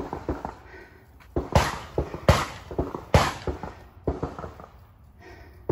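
Gunshots from an outdoor pistol range: a string of sharp cracks at uneven intervals, the loudest four in the first half, each followed by a short echo.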